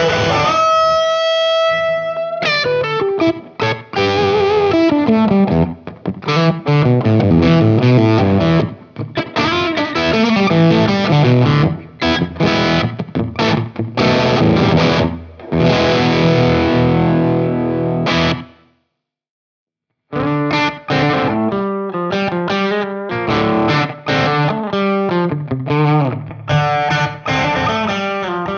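Electric guitar played through an Amonito tube amp with a fuzz pedal, first the Vemuram Myriad Fuzz: a held, slightly bent note, then fast distorted runs and chords. The playing stops for about a second and a half roughly two-thirds through, then resumes with a choppier riff through the Mythos Golden Fleece Fuzz.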